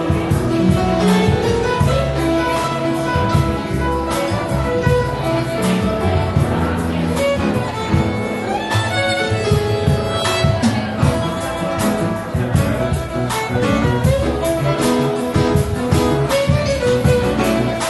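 Instrumental music played on a piano, a steady run of melody notes and chords.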